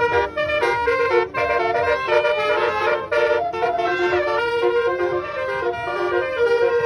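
Bus basuri musical air horn ('telolet') playing a quick melody, note after note in a brassy tone.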